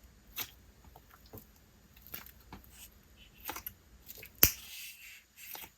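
Thick, glossy slime with a slightly overactivated base being handled, giving scattered soft sticky clicks and squishes. One sharper, louder pop comes about four and a half seconds in.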